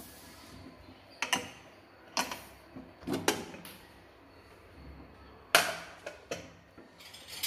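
Aluminium pressure cooker lid being twisted open and lifted off after cooking: a handful of sharp metallic clicks and knocks, the loudest clank about five and a half seconds in.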